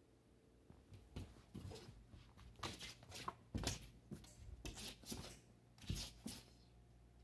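A cat's paws scrambling and scuffing on carpet and against a wall as it pounces and leaps: a run of irregular soft scratchy scuffs and thumps starting about a second in, loudest in the middle and near the end.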